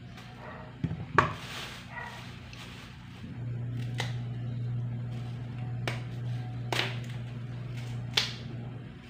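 Cassava being peeled by hand with a knife over a plastic bag: a few sharp clicks and crackles of the knife through the tough peel and the plastic rustling, the loudest about a second in. A steady low hum runs behind most of it.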